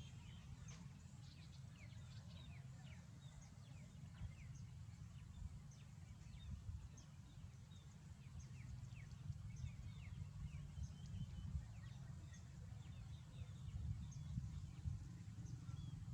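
Sparrows chirping: many short, quick, high chirps that sweep downward, scattered throughout. A steady low rumble runs underneath.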